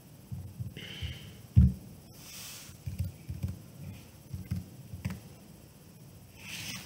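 Faint, irregular low thumps, the loudest about a second and a half in, with a few short soft hisses around one second, two and a half seconds and near the end.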